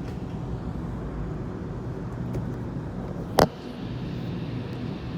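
Steady low rumble of a Sydney Waratah (A set) electric train running, heard from inside the carriage, with one sharp knock about three and a half seconds in.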